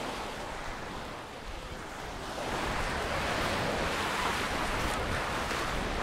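Mediterranean waves breaking and washing up a sandy beach, the surf swelling louder a couple of seconds in, with some wind on the microphone.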